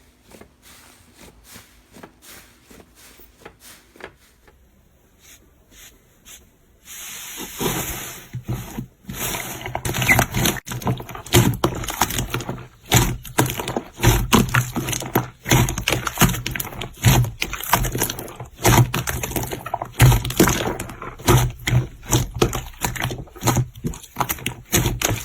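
Slime being handled and squeezed, a dense irregular run of small clicks and crackles that starts about seven seconds in after a stretch of only faint scattered clicks.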